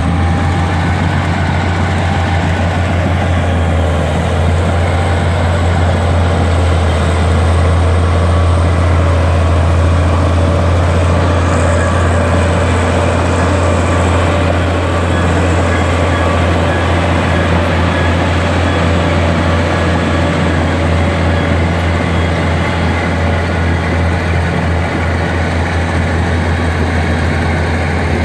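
Caterpillar crawler bulldozer's diesel engine running steadily and loudly while the dozer pushes soil with its blade, a deep low drone.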